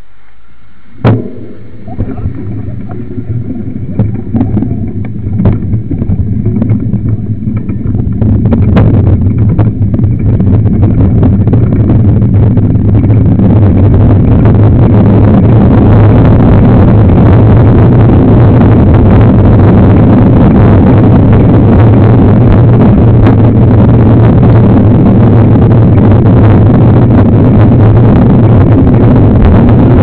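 Wind rumble and rolling rattle on a camera riding on a mountain bike over a dirt road, with a few knocks in the first seconds, building over about ten seconds as the bike picks up speed, then loud and steady.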